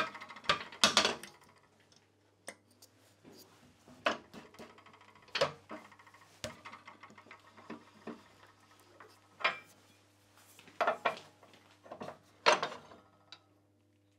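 Wood lathe running with a steady low hum while a turning tool is put to a spinning pine blank again and again: about seven short cutting scrapes, each with a brief rattling ring, the loudest near the start and near the end.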